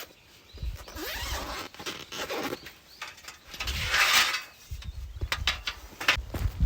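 Rustling and handling noises. About four seconds in comes a longer rasping sound, like a zip being drawn, and several sharp clicks and knocks follow near the end.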